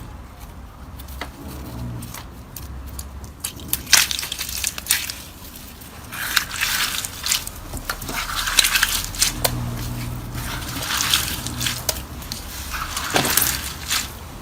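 Slime squeezed and pressed by hand: wet squishing in irregular bursts, with sharp clicks and pops.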